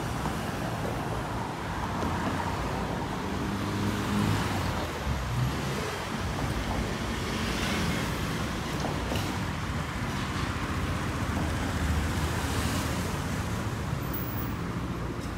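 Street traffic: cars running along a road, a steady engine rumble with tyre noise.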